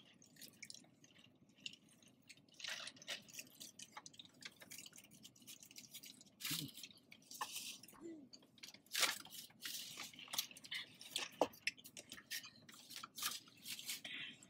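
Faint close-miked chewing and wet mouth sounds of people eating fast food: irregular soft smacks and clicks.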